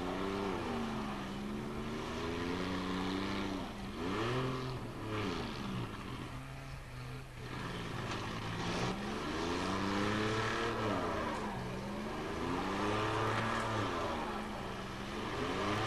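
Engines of demolition derby cars locked together, revving up and down over and over as they shove against each other, the pitch rising and falling every second or two. The revs drop away briefly about six seconds in, then pick up again.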